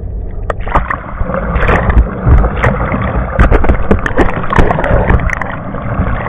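Lake water splashing and rushing against a camera at the surface as it comes up from underwater: about half a second in, the muffled underwater sound gives way to loud, crackling splashes with many sharp droplet hits, over a steady low rumble.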